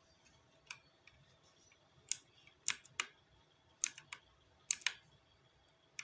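Keys of a Zifriend T62 mechanical keyboard being pressed one at a time: about eight sharp, separate clicks at an uneven pace, several coming in quick pairs.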